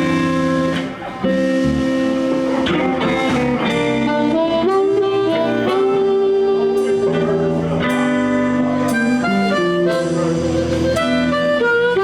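Live blues band playing an instrumental passage before the vocal comes in: guitar and harmonica over bass and drums.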